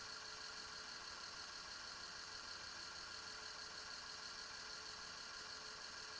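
Car engine idling steadily and faintly, with an even hiss.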